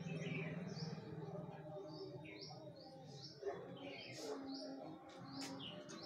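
Small birds chirping: a scattered run of short, high chirps, with a low hum underneath that is strongest in the first second.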